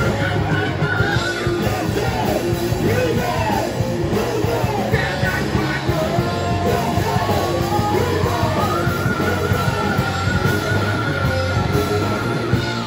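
Live heavy metal band playing loud: distorted electric guitars, bass and drums under a lead singer. The singer holds one long high note from about two-thirds of the way through.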